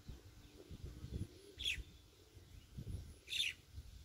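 A bird calling twice with short high chirps about a second and a half apart, over a low uneven rumble.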